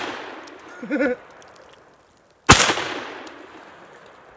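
Remington 11-48 16-gauge long-recoil semi-automatic shotgun firing a factory load once, about two and a half seconds in, the report echoing and dying away over a second or more. The fading echo of the shot before fills the first moments.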